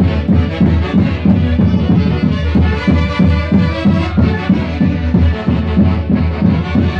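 Music from an Andean orquesta típica band playing a santiago, with many held melody tones over a steady pulsing beat.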